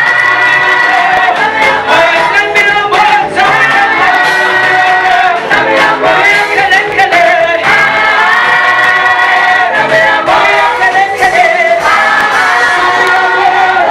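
Choir singing a Swahili gospel song in harmony, several voices holding long notes together.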